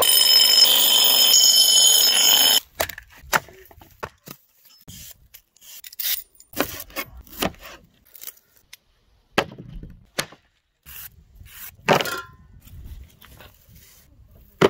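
Bench grinder sharpening a broad steel blade: a loud steady grinding with high ringing tones that cuts off suddenly after about two and a half seconds. Then scattered knife cuts and taps on a plastic cutting board.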